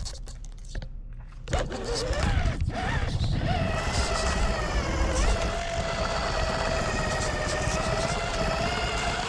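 Losi Night Crawler RC rock crawler's electric motor and drivetrain whining as the truck crawls over rocks. The whine rises in pitch about two seconds in and then holds fairly steady, over a low rumble.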